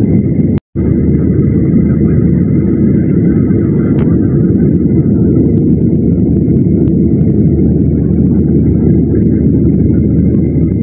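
Steady cabin noise of a FlyDubai Boeing 737 airliner in descent: a loud, even rumble of engines and airflow with a faint high whine over it. The sound cuts out for a moment under a second in.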